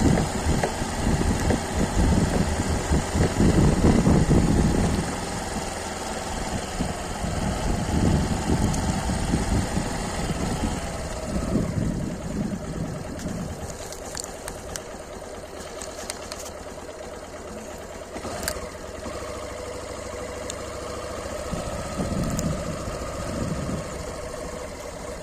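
Motorcycle engine running while riding, with wind rumbling on the microphone. The rumble is heaviest for the first few seconds, then eases to a steadier, quieter engine hum.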